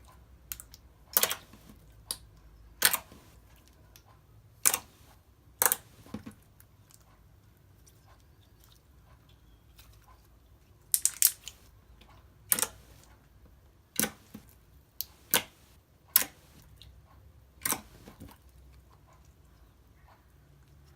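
Clear slime being poked and squeezed, with air bubbles popping in sharp, loud pops at irregular intervals, a dozen or so in all.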